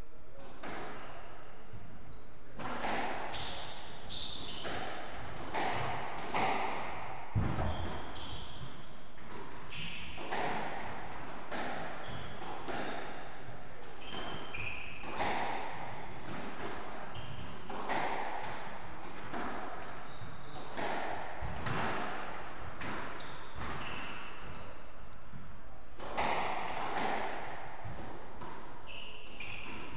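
Squash rally: the ball is struck by the rackets and hits the court walls in a string of sharp, echoing knocks, roughly one every one to two seconds, with short high squeaks of shoes on the wooden floor between the shots.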